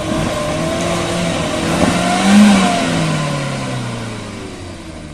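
Engine of a small cab-over pickup truck pulling up a steep, rough dirt slope. It revs up to a peak about two and a half seconds in, then drops in pitch and fades.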